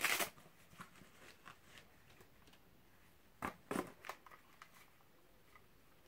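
Handling noise from a small camcorder being taken from its box: a sharp rustle at the start, two louder rustles a little past halfway, and light clicks and taps between as it is turned over in the hands.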